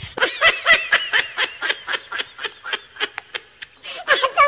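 Rapid high-pitched snickering laugh, a quick even string of short 'hee' pulses, about four or five a second. Near the end it runs into a longer wavering squeal, typical of a comedy laugh sound effect.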